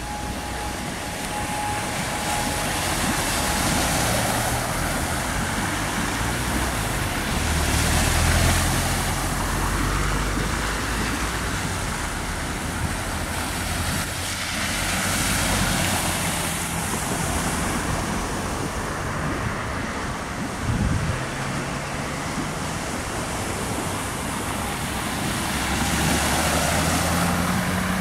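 Cars driving through a flooded street, their tyres swishing through standing water. Each pass swells and fades, about four times, over a steady rush of water and traffic.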